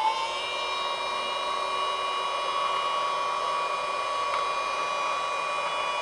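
USB-powered mini handheld vacuum cleaner running at full speed just after being switched on: a steady high whine over the rush of air as its crevice nozzle sucks up small paper scraps.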